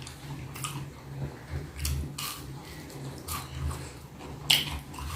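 Close-miked mouth sounds of eating: irregular wet chewing and lip smacks, with a sharper smack about four and a half seconds in.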